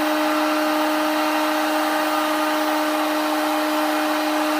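Electric heat gun running steadily: a constant blower whir with a steady hum, heating PVC pipe to soften it for shaping.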